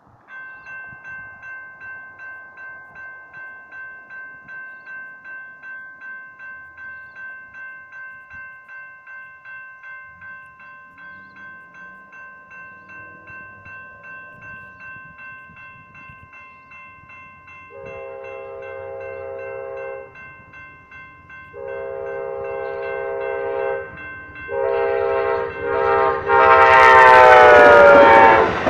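Railroad crossing bells (General Signals Type 2) ringing steadily at about two strikes a second. The rumble of an approaching train grows, and then the Amtrak diesel locomotive sounds its horn in the crossing pattern: long, long, short, long. The last blast drops in pitch as the locomotive passes, and the noise of the train passing rises at the very end.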